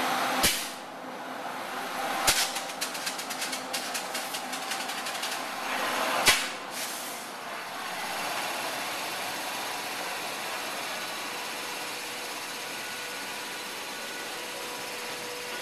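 Indian Railways WAG-9 electric locomotive moving slowly with a freight train, its air compressor running with a steady mechanical hum. About two seconds in, a run of rapid clicks lasts about four seconds and ends in a sharp knock.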